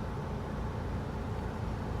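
Steady low rumble inside the cabin of a Mitsubishi Delica D:5 with its clean-diesel engine running and the air conditioning on.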